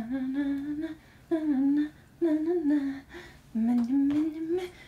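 A woman humming a wordless tune in about four short phrases.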